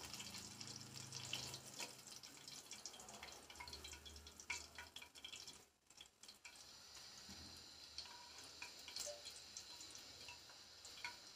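Faint sizzling and crackling of bhola fish pieces frying in oil in a pan, with a few light ticks; it cuts out briefly about six seconds in.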